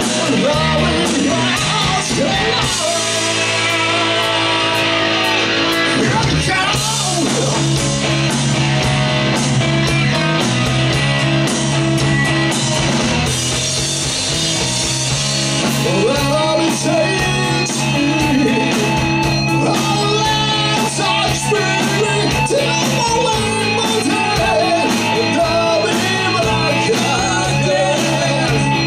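Live metal band playing loudly: distorted electric guitars, bass and drum kit, with lead vocals singing over them for much of the stretch.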